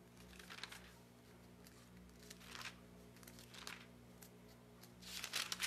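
Thin Bible pages being turned, several soft paper rustles with the loudest near the end, over a faint steady electrical hum.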